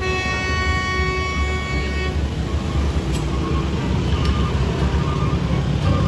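A vehicle horn sounds one steady note for about two seconds, then stops, over the steady low rumble of scooter and truck engines pulling up the steep hairpin.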